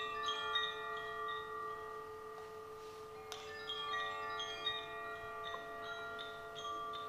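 Chimes ringing in a sound-healing session: overlapping bell-like notes that sustain and fade, with a fresh cluster struck about three seconds in, over a steady low held tone.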